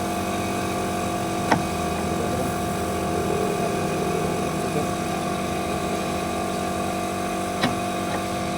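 A steady machine hum, with two sharp clicks: one about a second and a half in, one near the end.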